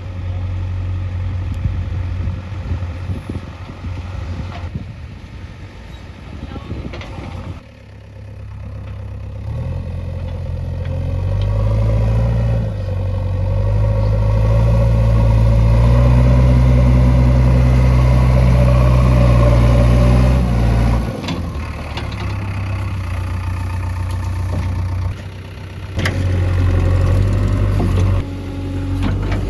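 Heavy diesel machinery engine running, revving up about ten seconds in and holding high revs for several seconds before dropping back suddenly around twenty seconds in.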